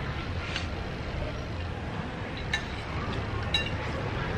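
Metal spoons and forks clinking lightly against ceramic plates a few times, over a steady low background rumble.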